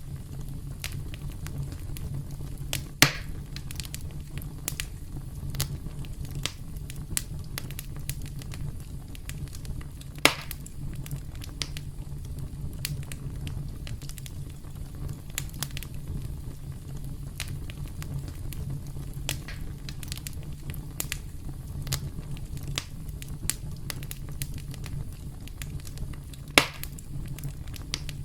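Campfire crackling steadily over a low rumble, with many small snaps and three louder sharp pops, about 3, 10 and 26 seconds in.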